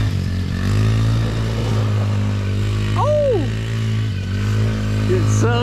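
Yamaha Raptor 90 ATV's small four-stroke single-cylinder engine running at a steady speed, with a short rising-and-falling whoop about halfway through.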